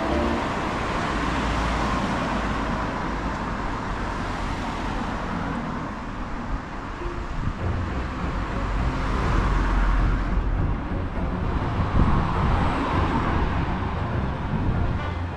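Road traffic on a town street: a steady wash of engine and tyre noise that swells twice as vehicles pass.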